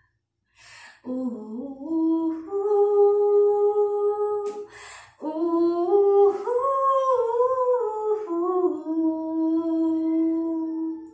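A woman's unaccompanied voice humming the song's melody without words, in two phrases of long held notes that step up and down. Each phrase starts with an audible breath.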